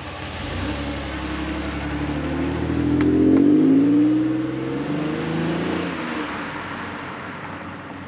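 Pontiac Grand Am GT's 3.4-litre V6 exhaust through a Borla muffler as the car accelerates away. The engine note rises in pitch and is loudest a few seconds in, then drops and fades as the car goes off down the street.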